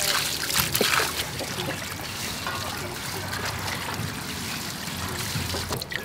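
Water pouring from a pipe into a metal basin of sweet potatoes, trickling and splashing as hands scrub the tubers under the stream.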